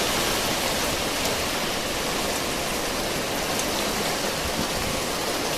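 Heavy downpour in a squall: a steady, dense hiss of rain and gusting wind.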